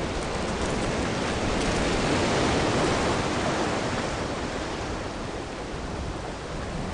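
Steady rushing noise of heavy rain, swelling slightly around the middle.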